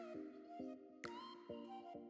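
Quiet background music: a melody of short notes, with a bright chime-like stroke about a second in.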